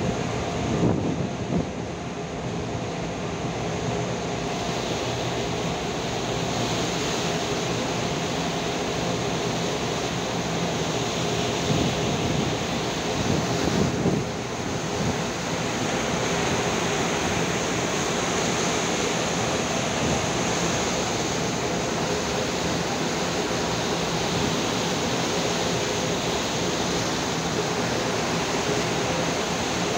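Steady rush of wind and sea water around a moving boat, with the low hum of the boat's engine under it. The noise swells briefly about a second in and again around fourteen seconds.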